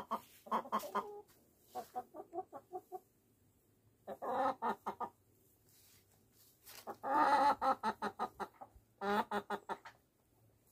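Chickens clucking in several short runs of quick, repeated clucks.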